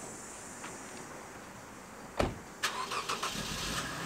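A car door shuts with a loud thud about two seconds in, then the 2012 Lexus IS250's 2.5-litre V6 is cranked and catches near the end, settling into a steady idle.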